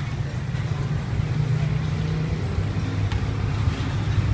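Steady low rumble of motor traffic, with faint voices.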